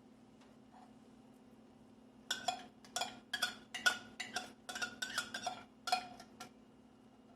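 A metal utensil clinking repeatedly against a metal container, about a dozen quick ringing clinks in an uneven run starting about two seconds in and stopping near the end.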